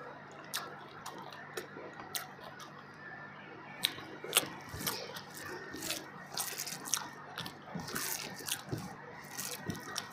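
Close-up chewing and mouth sounds: wet clicks and smacks while food is chewed, coming thicker and louder in the second half.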